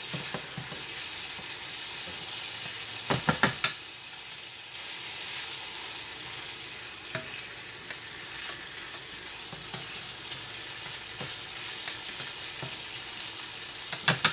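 Rice and onions sizzling steadily in hot oil in a frying pan as the rice toasts, stirred with a wooden spatula. A few quick knocks about three seconds in, and another run of knocks starting near the end.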